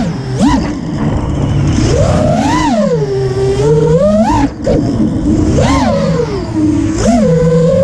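FPV freestyle quadcopter's brushless motors (Lumenier 2207 2700kv) whining, the pitch swooping up and falling back about five times as the throttle is punched and eased.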